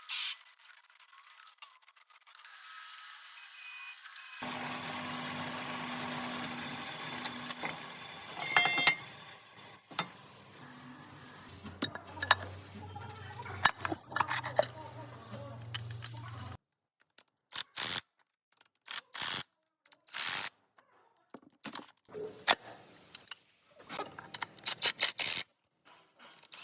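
Hand-tool work on metal parts: short clicks, clinks and ratchet-like ticks, first over a steady hiss and then in scattered single strikes with silences between them.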